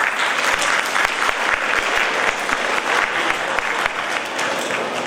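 Audience applauding, a dense clapping that eases off near the end.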